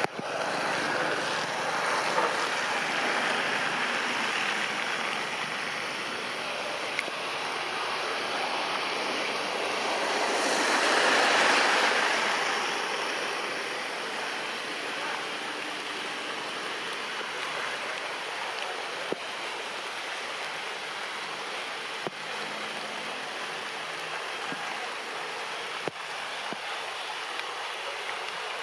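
Steady rain falling on tree leaves, swelling louder for a few seconds around the middle, with a few sharp ticks of drops.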